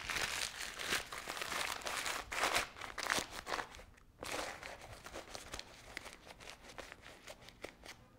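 Crumpled newspaper crinkling and rustling as it is stuffed into a kendo kote to help the glove dry. The rustling is busiest in the first four seconds, pauses briefly, then goes on as fainter, scattered crackles.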